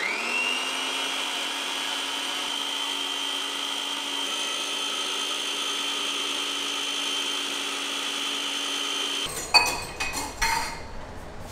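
Preethi Zodiac Cosmo food processor's citrus juicer attachment running: the motor spins up and turns the reamer at a steady pitch while a sweet lime half is pressed onto it. It cuts off about nine seconds in, followed by a few knocks.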